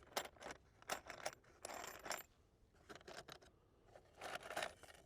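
Small metal parts clinking and jingling together in several short rattling bursts.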